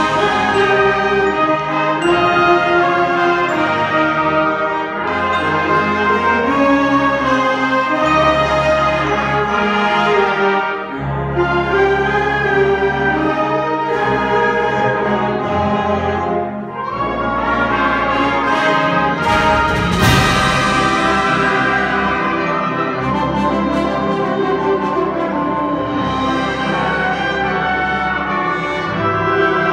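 High school concert band of woodwinds, saxophones and brass playing a sustained passage. The band drops back briefly, then builds to a loud climax about two-thirds of the way through.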